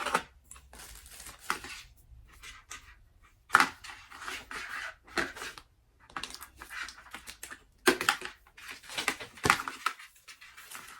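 Floor lamp being assembled by hand: lamp parts screwed together and handled, with irregular scraping and rustling and several sharp knocks of parts against each other.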